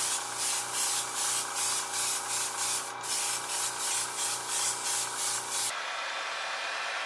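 Airbrush spraying clear coat: a loud hiss of air and paint that pulses about three times a second over a steady hum. The spraying stops about six seconds in, leaving a quieter steady hiss of air.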